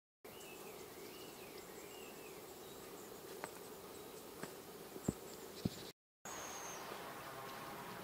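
Faint outdoor ambience with a steady hum, a faint wavering high whistle in the first couple of seconds and four sharp clicks, the loudest about five seconds in. The sound cuts out completely for a moment twice, at the start and about six seconds in.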